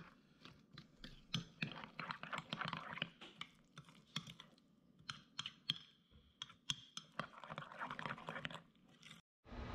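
A spoon stirring diced onions into a thick ketchup marinade in a glass bowl: irregular faint clicks and scrapes of the spoon against the glass, stopping abruptly near the end.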